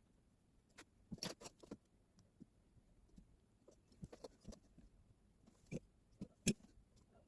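Faint, scattered light clicks and taps of small objects being handled on a work surface: a quick cluster about a second in, a few more around the middle, and one sharper tap near the end.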